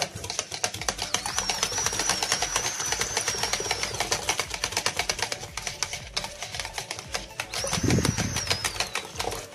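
Wire hand whisk beating ayran in a bowl: fast, even clicking and swishing of the wires against the bowl as the yogurt drink is whipped to a froth. A thin, wavering high whistle sounds twice, for a few seconds each time, and a brief low rumble comes near the end.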